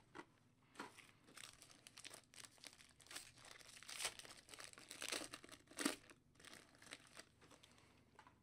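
Faint crinkling and rustling of plastic card wrappers and sleeves being handled, with irregular soft clicks and crackles.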